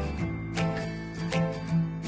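Background music: chords struck roughly every half second over a sustained bass line.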